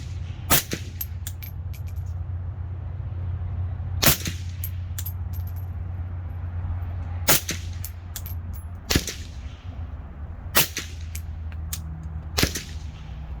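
Suppressed CZ Bren 2 MS rifle in 7.62×39 with a Dead Air Nomad can, fired slowly: six shots, each a sharp crack, one to three and a half seconds apart, with fainter clicks between them.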